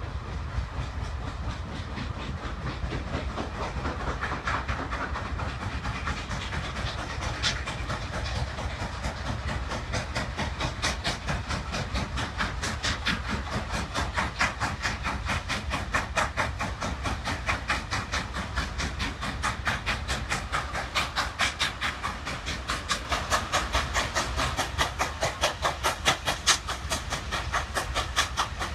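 Norfolk & Western Class J 611 steam locomotive pulling away with its train: a string of sharp exhaust chuffs over a low rumble, the beat speeding up as the engine gathers speed.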